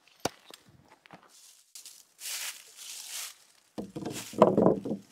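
Footsteps and rustling on dry fallen leaves, then louder knocks and scraping on wooden boards near the end.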